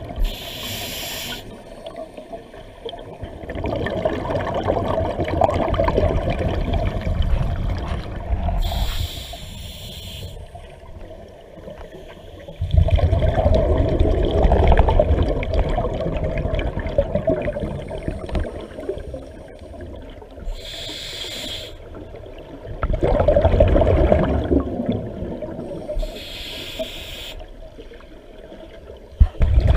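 Scuba diver breathing through a regulator underwater: four short hissing inhalations, each followed by several seconds of rumbling, bubbling exhalation from the regulator exhaust.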